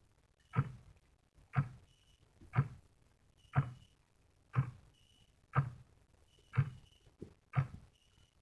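Clock ticking once a second, each tick a sharp click with a brief faint ring after it, and a fainter extra click just before the last tick.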